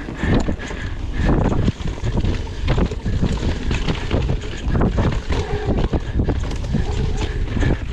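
Mountain bike racing down a rough trail: wind buffeting the microphone and the tyres rumbling over dirt and rocks, with frequent clacks and rattles from the bike over the bumps.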